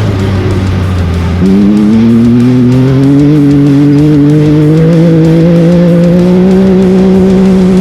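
Off-road race vehicle's engine running steadily low, then about a second and a half in it gets louder and the revs climb gradually under throttle and hold high.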